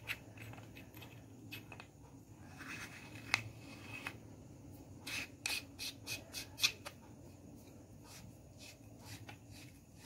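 Hands handling and turning a metal Astrolux FT03 flashlight: faint rubbing and scraping with a scatter of sharp clicks and taps, most of them bunched together past the middle.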